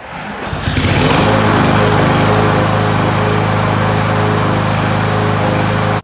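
Gas lawn mower engine coming up to speed within the first second, then running steadily at high speed with a high whine over its note; it cuts off abruptly at the very end.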